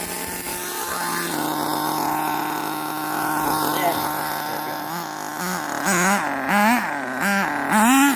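RC car motor whining at a steady pitch, then revved up and down in quick repeated throttle blips over the last three seconds, each one rising and falling in pitch.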